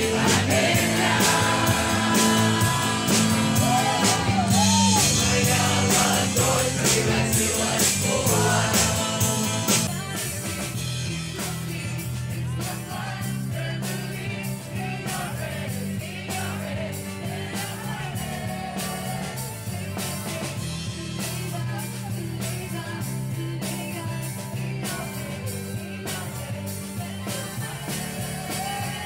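Live amplified street performance: a woman singing rock-style into a microphone over a band with a steady beat. It gets somewhat quieter about ten seconds in.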